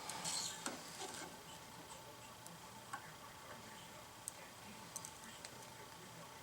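Faint, scattered light clicks and taps from handling calipers and metal brackets while measuring, with a soft rustle near the start and quiet room tone between.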